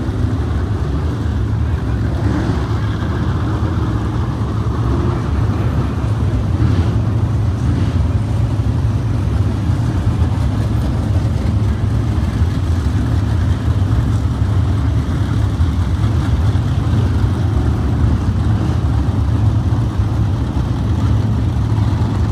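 Dirt track race cars running laps on the oval: a steady engine noise.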